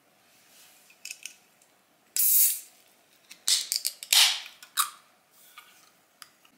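Slim aluminium can of carbonated Pepsi being opened by its pull tab: several small metallic clicks and two short, loud fizzing hisses of gas escaping, about two seconds in and about four seconds in.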